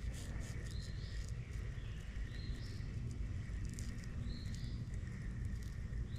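Outdoor ambience of insects droning steadily, with a bird giving a short rising call about every two seconds over a low rumble.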